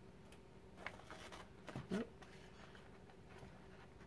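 Scissors snipping through freezer paper: a few faint cuts in the first two seconds.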